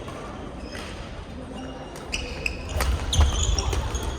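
Badminton doubles rally: sharp racket hits on the shuttlecock, several times and closer together in the second half, mixed with short high shoe squeaks on the court floor.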